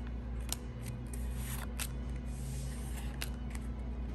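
Pokémon trading cards being flicked through by hand, one past another: several crisp card snaps and slides over a steady low hum.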